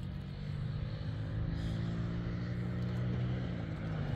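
An engine running steadily, its pitch sagging slightly near the end.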